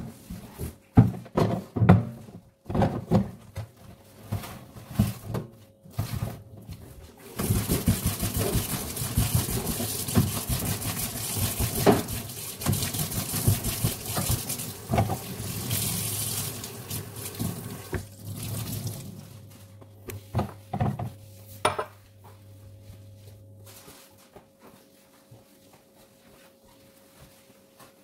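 Dishwashing at a kitchen sink: dishes and utensils clink and knock, then the tap runs steadily for about twelve seconds while dishes are rinsed under it. A few more knocks follow once the water stops.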